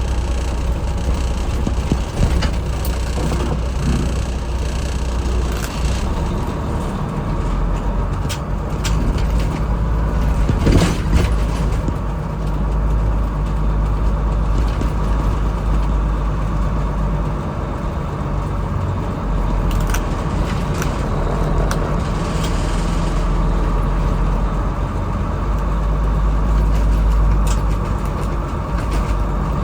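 A White/GMC cab-over truck's diesel engine running steadily with a deep rumble, with a few sharp knocks, the loudest about eleven seconds in.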